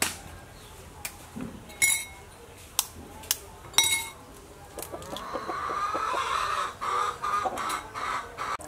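Chickens clucking, with a few light clicks of duck eggshells being cracked and pulled apart by hand in the first few seconds. The clucking grows louder and steadier after about five seconds.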